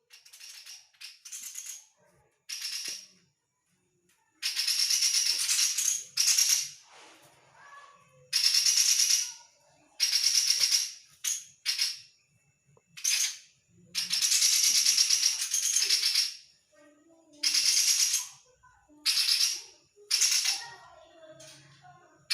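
Chestnut-rumped babbler (tepus tunggir merah) calling in full voice: about a dozen harsh, rapidly pulsing rattling bursts, each from a fraction of a second to about two seconds long, with short gaps between them.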